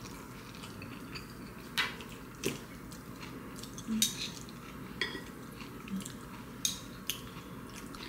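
Wooden spoons and chopsticks tapping and scraping against roasted kabocha squash halves and ceramic dishes while eating. A string of separate light clicks and knocks, about one a second.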